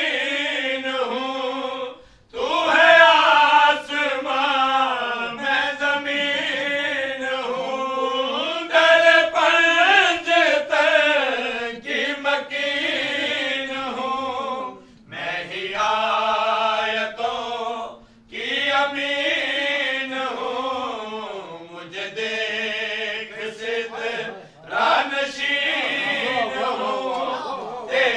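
A man chanting a Punjabi qaseeda, a devotional poem, solo and unaccompanied into a microphone. He sings in long, held melodic phrases broken by a few short pauses for breath.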